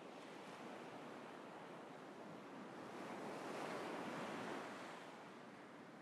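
Sea surf on a sandy beach: a steady wash of breaking waves, with one wave swelling louder about three seconds in and fading away by five seconds.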